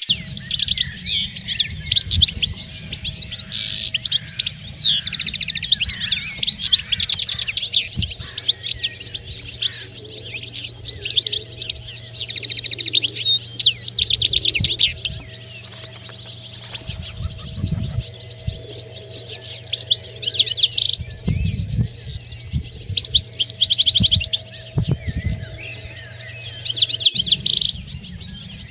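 European goldfinches twittering and singing in quick trills and chirps, in bursts with short pauses. A steady low hum runs underneath, with a few low thumps.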